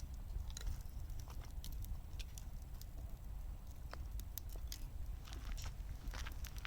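Wood fire burning in a wood gas stove, crackling with irregular sharp pops and snaps over a steady low rumble.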